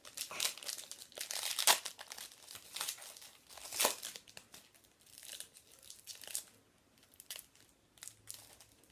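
Wrapper of a trading card pack crinkling and tearing as it is opened by hand, in an irregular run of crackles that thin out after about six seconds.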